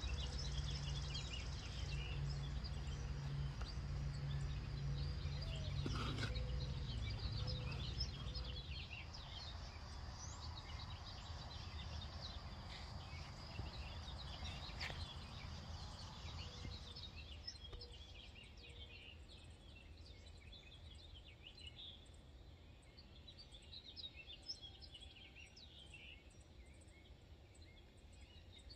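Outdoor garden ambience: many small birds chirping, with short calls throughout and a low rumble that fades after the first eight seconds or so.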